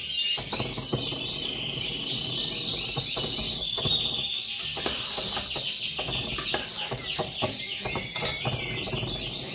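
Many small birds chirping and twittering over one another without a break, a dense chorus of short rising and falling notes. Faint clicks sound beneath it now and then, likely from dumplings frying in hot fat.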